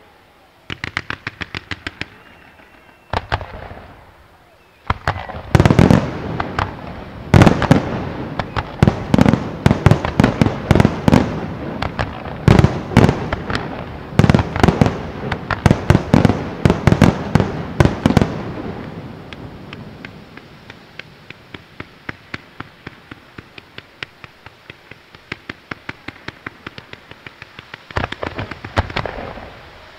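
Fireworks display: shells bursting in dense, rapid volleys of loud bangs, then a long run of quicker, fainter crackling reports.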